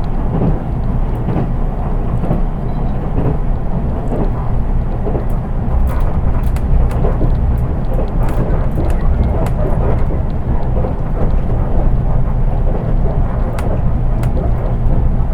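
Interior running noise of a JR East 183 series train heard from inside its unpowered KuHa driving trailer car: a steady low rumble of wheels on rail, with scattered light clicks and rattles. There is no traction-motor whine, which is why the sound is plain.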